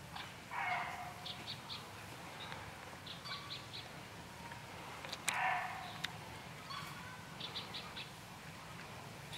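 Small birds chirping in quick runs of three or four short high notes. Twice, about half a second in and about five seconds in, a louder harsh sound lasts about half a second, over a low steady hum.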